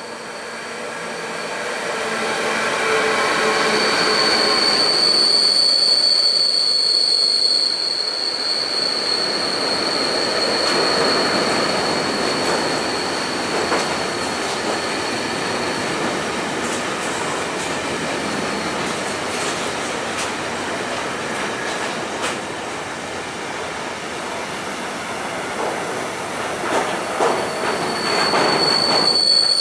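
Freight train of container wagons hauled by a Siemens Vectron electric locomotive rolling past close by, growing louder as the locomotive arrives. A high steady wheel squeal sets in about four seconds in and fades out around sixteen seconds. The wagons' wheels rumble and clatter over rail joints, with a run of clacks near the end.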